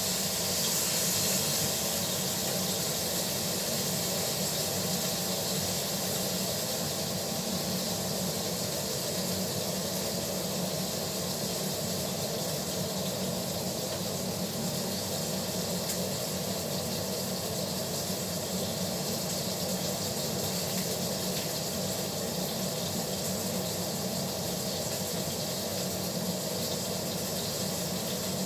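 Steak searing in a hot pan, a steady sizzle as one side browns.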